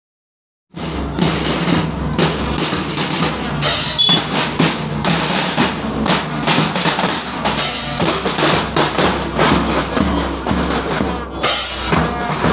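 A school marching band's snare drums, played with sticks, beating a marching rhythm. They start suddenly less than a second in.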